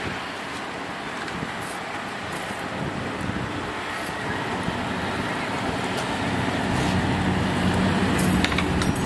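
An engine running with a low steady hum over background noise, growing louder from about three seconds in. A few light clicks come near the end.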